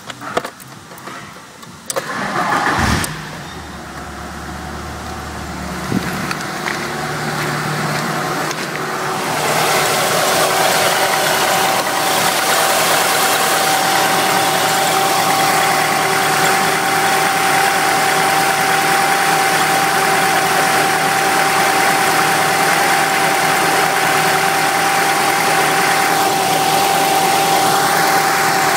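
Ford Galaxy 2.3-litre DOHC 16-valve four-cylinder engine (Y5B) started with a short crank about two seconds in, then idling steadily. From about nine seconds in it is heard close up in the open engine bay: louder, with a steady high whine over the idle.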